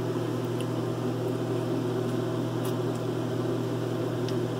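Steady low mechanical hum of a running fan, with a few faint clicks about halfway through.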